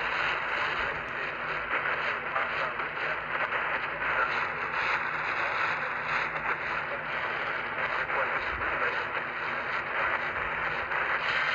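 Steady radio static hiss from a receiver on a weak or empty channel.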